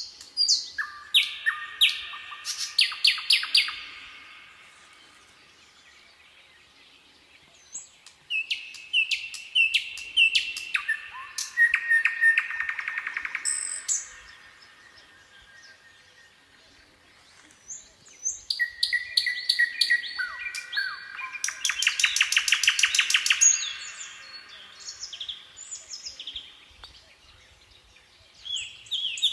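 A nightingale singing in separate phrases of whistles and very fast rattling trills, with pauses of a few seconds between three phrases.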